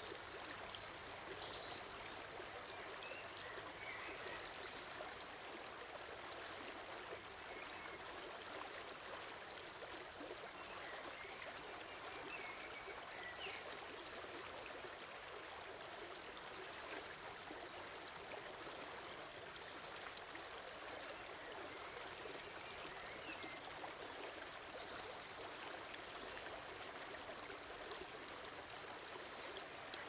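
Shallow stream running steadily over a stony bed, a continuous rush and trickle of water. A few short high chirps sound over it, the loudest about a second in.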